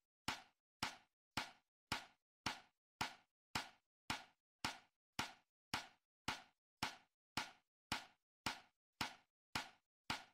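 A short, sharp knock repeating evenly a little under twice a second, each one dying away quickly, with silence between.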